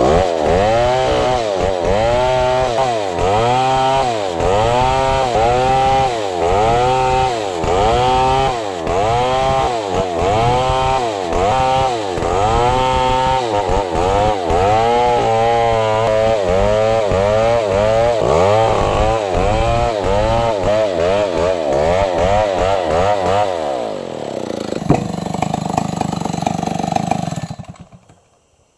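STIHL 070 two-stroke chainsaw cutting wood, its engine pitch rising and falling about once a second as the load comes and goes in the cut. Near the end it runs steadier, then cuts off abruptly.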